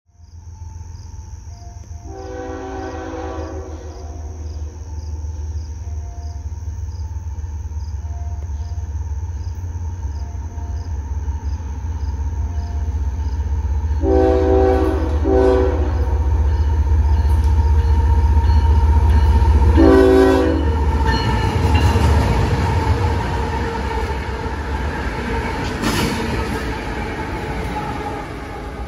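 A light-engine move of CSX GE Evolution-series (GEVO) diesel locomotives approaching and passing at speed, the diesel rumble building to a peak with rail noise as the units go by. The lead unit sounds its multi-tone horn: one long blast about two seconds in, a long and a short blast near the middle, and another long blast about two-thirds of the way through.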